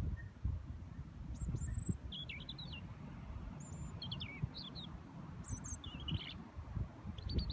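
European robin singing a string of short, high, thin warbling phrases, with gusts of wind rumbling on the microphone underneath.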